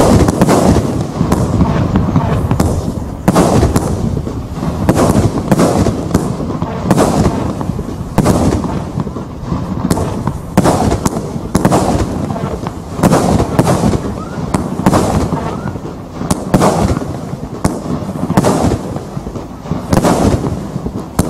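Tai Pan Rio Grande 80-shot 1.3G firework cake firing shot after shot: sharp bangs of launches and bursts about one a second, over a continuous din.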